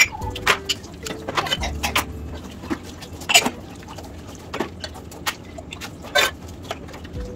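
Dishes being rinsed in a stainless steel sink under a running tap: steady water noise with irregular sharp clinks and knocks as plastic ware and a stainless steel tumbler are handled against the sink and other dishes.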